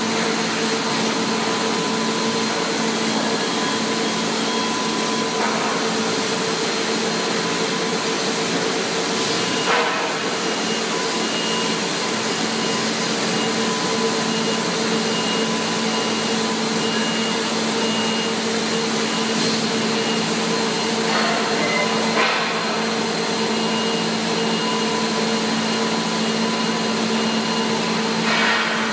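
Gietart GW 1500 shot blasting line running: a loud, steady machine drone with a constant hum, and brief knocks about ten seconds in, around twenty-two seconds and near the end.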